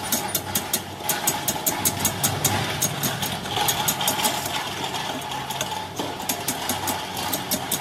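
Tractor engine running steadily, with an even ticking, several ticks a second, over its hum.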